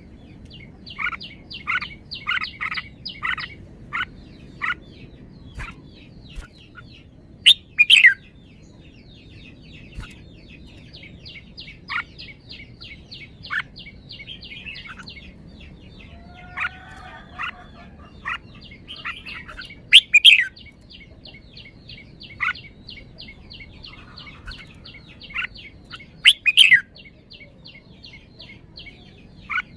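Red-whiskered bulbul singing: short loud phrases of sweeping whistled notes, heard several times, with a quick string of notes a couple of seconds in, over a fast, even ticking chatter.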